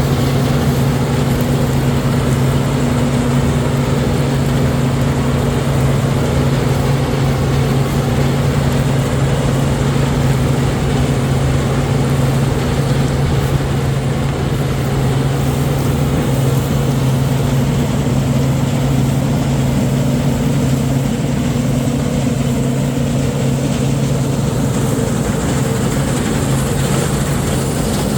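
Farm machinery engine running steadily at a constant pitch during wheat harvesting: a loud, even drone with no breaks.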